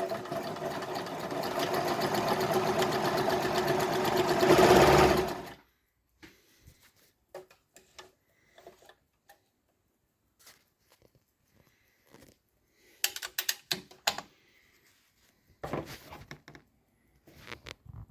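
Pfaff 204 sewing machine running and stitching a narrow zigzag, speeding up and growing louder, then stopping suddenly about five and a half seconds in. After it come scattered light clicks and knocks.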